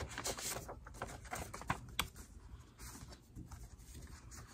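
Greeting card being opened and handled: faint paper rustles with a quick run of light clicks and crackles in the first couple of seconds, then only a few scattered ticks.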